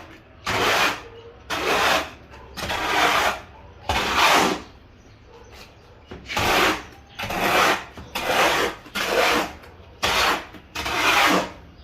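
Hoe scraping cement mortar: about ten separate scraping strokes, each under a second, with a longer pause of over a second near the middle.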